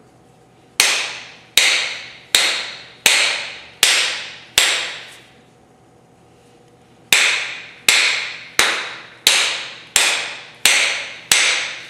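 Hammer blows driving a hammer head onto a new replacement handle, the hammer held upside down and struck with a second hammer. There are thirteen sharp strikes, each with a bright ringing tail: six about three-quarters of a second apart, a pause of about two and a half seconds, then seven more.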